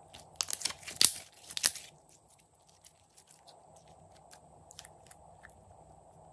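Thick glossy slime squeezed and squished between the hands, giving a burst of crackling and popping for about a second and a half near the start. After that come only faint, sparse clicks and pops.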